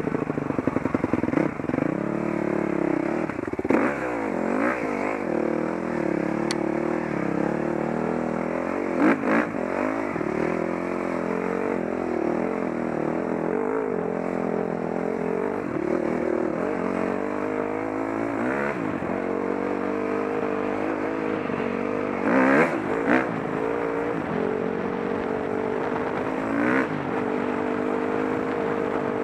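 A vehicle engine running hard, its pitch climbing and dropping every few seconds as it revs up and changes gear, with a few short loud knocks, the loudest about nine seconds in and again a little after twenty-two seconds.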